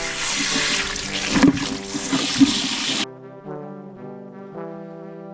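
Loud running water, cut off abruptly about three seconds in, over background music with sustained melodic notes that continue alone afterwards.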